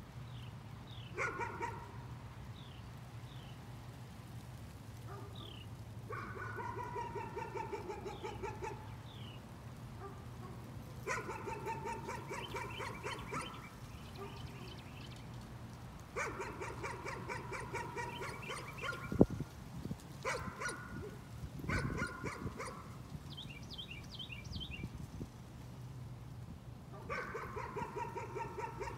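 A dog barking in repeated bouts of quick, rapid-fire barks, each bout one to three seconds long and a few seconds apart. A single sharp click a little past the middle is the loudest sound, over a steady low hum.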